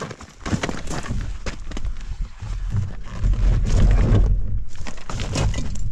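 BMW R1200GS motorcycle on a rough gravel track: a string of knocks and thuds over a low rumble, loudest about three to four seconds in.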